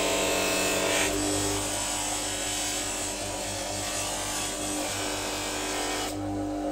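Bench grinder motor running with a buffing wheel, a steady hum under the hiss of the steel knife blade and a bar of polishing compound being pressed against the spinning buff. The hiss drops off briefly near the end.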